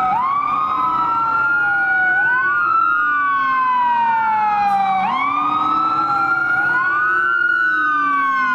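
Wailing siren of the kind an ambulance uses: two overlapping tones sweep slowly up and down, each cycle lasting about five seconds.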